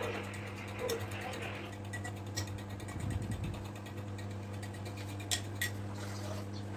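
Pot of spiced water heating toward the boil, with scattered faint ticks and pops from small bubbles at its frothy surface and two sharper clicks a little past halfway. A steady low hum runs underneath.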